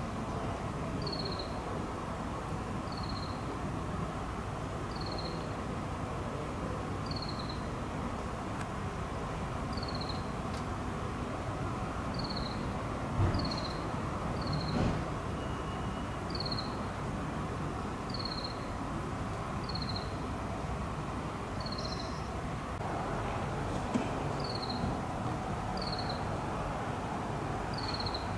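Outdoor ambience: a short, high, falling chirp repeats evenly about every two seconds over a steady background hum, with two dull thumps about halfway through.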